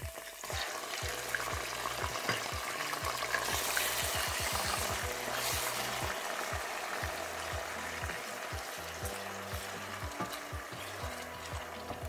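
Blended onion and pepper paste sizzling as it is poured into hot oil and stirred with a wooden spoon. The sizzle flares up about three seconds in and settles down to a steady fry.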